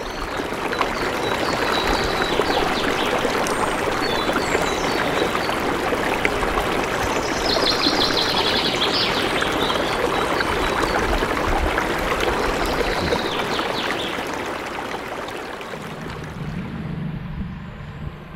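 Steady rushing of flowing river water, with a few faint high chirps over it; it eases off near the end.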